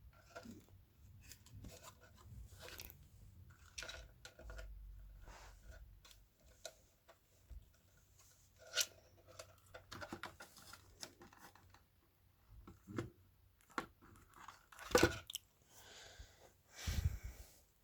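Scattered clicks, rustling and light knocks from parts of a taken-apart subwoofer being handled, with a sharper knock about fifteen seconds in and a dull thud near the end.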